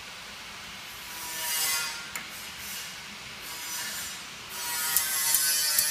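Allen key working a fastener on a blister packing machine's metal mold: metal scraping and rubbing in short strokes, with a sharp click about two seconds in and a few more sharp clicks near the end.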